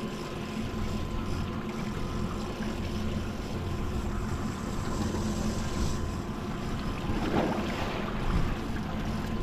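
Boat's outboard motor running steadily, a low hum under wind buffeting the microphone and the wash of water around the hull.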